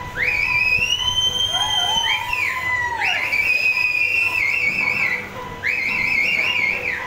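A high whistling melody in three long held notes. The first slides up and is joined briefly by a lower sliding tone, and the second and third end in a fast warbling wobble.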